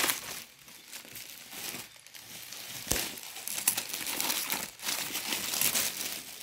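Clear plastic wrapping crinkling and rustling in irregular handfuls as it is pulled off a rolled-up folding umbrella, with a sharp snap about three seconds in.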